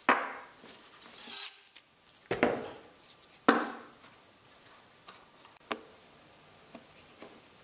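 Slotted plywood parts knocking and rubbing against each other as they are fitted together by hand: three sharp wooden knocks in the first few seconds, then a few lighter clicks.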